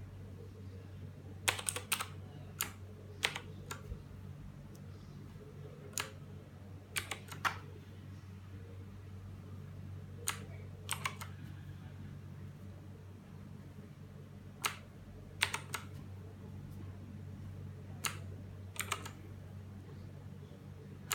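Blue-switch keys on a Redragon K300 mechanical keyboard clicking as they are pressed one or two at a time, in sparse clusters with pauses of a second or more between them, over a steady low hum.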